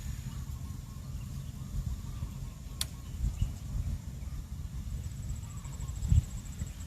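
Outdoor background with a steady low rumble, a single sharp click almost three seconds in, and a faint high, rapidly pulsing buzz that starts about five seconds in.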